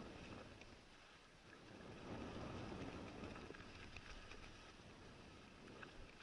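Mountain bike tyres rolling fast over wet leaf litter and mulch, a soft steady rush that dips about a second in and grows again from about two seconds in. A few faint clicks and rattles from the bike come through.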